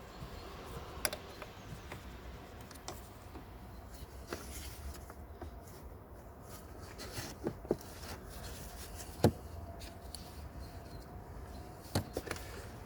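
Mercedes OM651 diesel engine idling as a low steady hum, with scattered sharp clicks and taps at irregular intervals.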